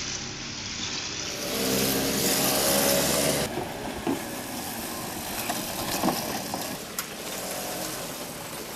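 Small moped engine running and pulling away, its pitch steady. About three and a half seconds in the sound cuts to a noisier stretch of the engine with a few sharp knocks.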